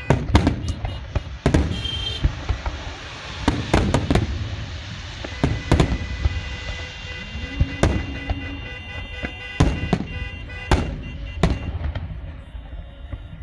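Fireworks bursting: about a dozen sharp bangs at irregular intervals, some in quick pairs and triplets, over a crackling haze.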